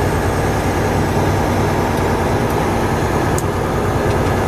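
Mack CXU613 tractor-trailer cruising at highway speed, heard from inside the cab: a steady engine drone and road noise, with a couple of faint clicks.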